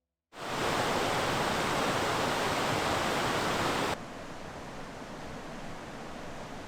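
Steady rushing of river rapids. It cuts in suddenly, stays loud for about three and a half seconds, then drops abruptly to a quieter, more distant rush.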